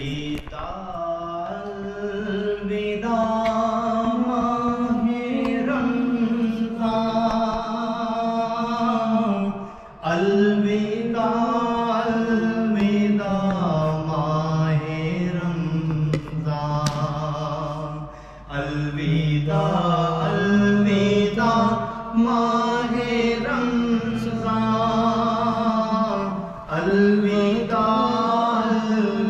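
A man's voice singing a naat, unaccompanied, in long drawn-out phrases of held, slowly bending notes, with short breaks between phrases.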